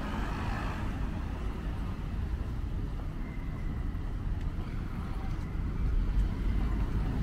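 Street ambience: a steady low rumble of road traffic, a little louder about six seconds in.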